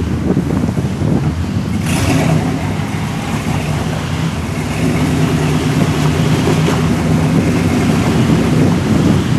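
Engine of a lifted, caged pickup rock crawler running and being revved as it works its tires against boulders, getting louder and a little higher from about halfway through. A short hiss about two seconds in.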